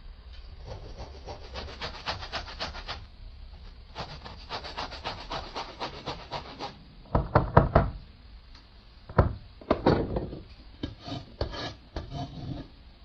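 Rapid rhythmic scraping or rubbing strokes on wood in two runs, then several louder knocks in short clusters.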